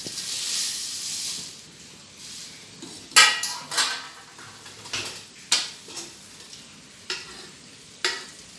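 A hiss as dried red Byadgi chillies go into a hot, lightly oiled pan on a gas stove. Then about seven sharp metal clanks and knocks of the pan and steel cookware, the first and loudest about three seconds in.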